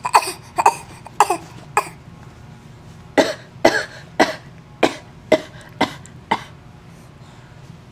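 A person putting on a fake coughing fit: four short coughs, then after a pause a second run of seven coughs at about two a second.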